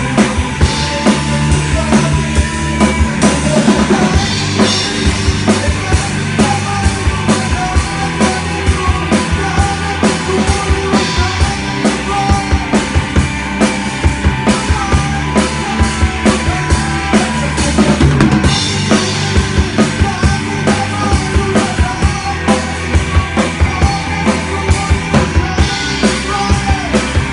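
Band playing live, with a drum kit to the fore keeping a fast steady beat of kick and snare over sustained bass and guitar notes.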